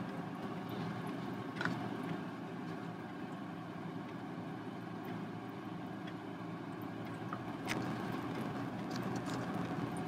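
Steady low hum in the background, with a few light clicks as a metal ball chain is dragged through wet acrylic paint and lifted off the canvas.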